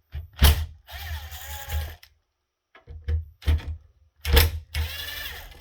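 Electric drill driving out screws in two runs, its motor whine wavering in pitch, with sharp knocks between.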